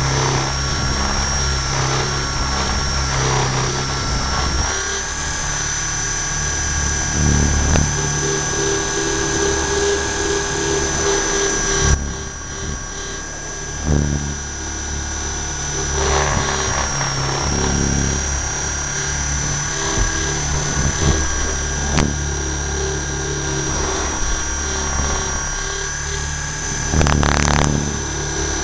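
Align T-Rex 600 RC helicopter in flight, heard through its own onboard camera: the drivetrain and rotor run with a steady high whine over a deep low hum. The sound drops and thins out briefly about twelve seconds in, then picks back up a couple of seconds later.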